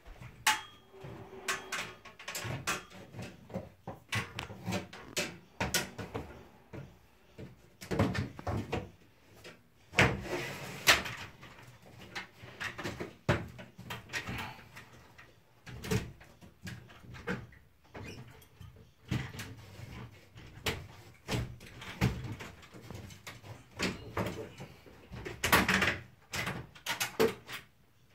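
A flyscreen frame being handled and fitted into an awning window frame. It gives irregular knocks, clicks and rattles as it bumps and seats against the window frame, with louder knocks about 8, 10 to 11 and 25 to 26 seconds in.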